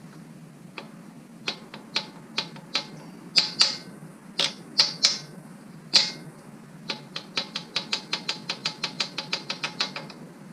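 Socket ratchet clicking on the main cap bolts of a small-block Chevy: a series of separate clicks, then a fast, even run of clicks for about three seconds near the end.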